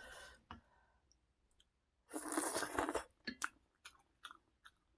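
Close-miked eating sounds: a drawn-out noisy sucking sound about two seconds in, then a series of short crunching chews.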